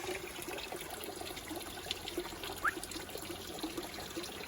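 Water trickling steadily into a garden pond, a continuous bubbling splash. A single short rising chirp sounds about two and a half seconds in.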